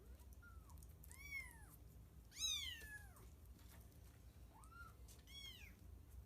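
Cat meowing five times, short calls that rise and fall in pitch; the third, about two and a half seconds in, is the loudest.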